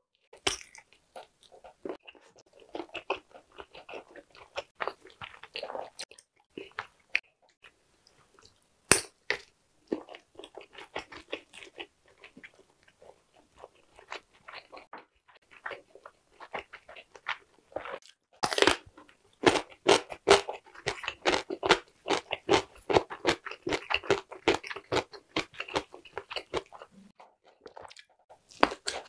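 Biting and chewing of Korean blood sausage (tong-sundae): wet mouth sounds with many sharp clicks, busiest in the second half.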